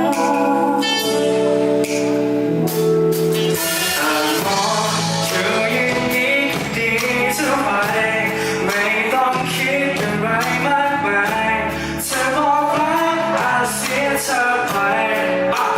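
Live band playing an instrumental passage of a pop song: held chords at first, then a drum beat and a moving melodic lead come in about four seconds in.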